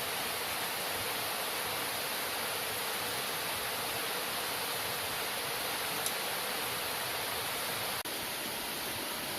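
Steady, even rushing hiss with a brief dropout about eight seconds in.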